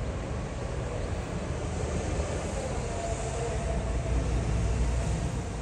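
Steady low rumble with a fainter hiss above it and a faint hum running through it; no clear calls stand out.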